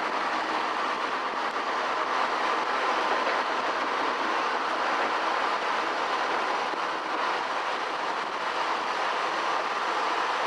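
Heritage railway carriage moving slowly along the line, heard from an open carriage window: steady running noise of the wheels on the rails.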